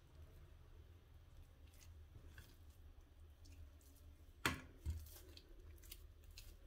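Soft dough being cut with a knife and pulled apart by hand on a granite counter: faint squishing and light ticks over a low steady hum. A little after halfway come two sharp clicks about half a second apart, a knife being set down on the stone.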